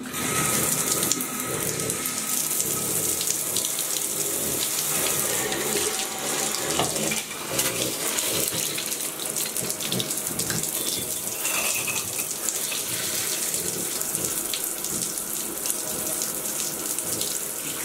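Steady rush of water from a handheld bathtub shower sprayer running into the tub while the water is adjusted to lukewarm.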